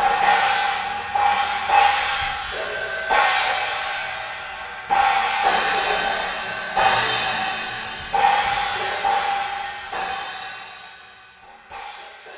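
Cymbals struck every one to two seconds, each crash ringing on and slowly dying away, the whole fading out near the end.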